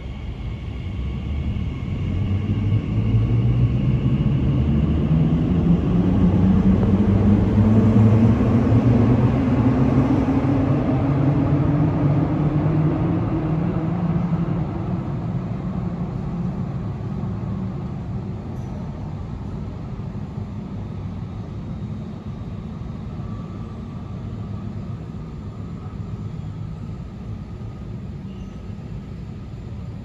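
Elizabeth line Class 345 electric train pulling out of an underground station, its traction motors whining in several tones that rise steadily in pitch as it accelerates away. The sound is loudest about a third of the way in, then fades to a low rumble as the train recedes into the tunnel.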